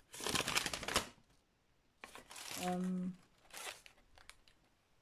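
Paper instruction sheet and the clear plastic film over a diamond-painting canvas rustling and crinkling as they are handled, in two short bursts. A brief hummed "hmm" comes between them, about two seconds in.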